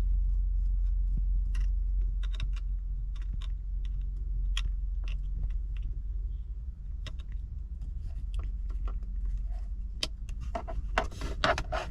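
Steady low hum inside a car cabin, with scattered light clicks and taps from handling the touchscreen head unit, coming quicker near the end.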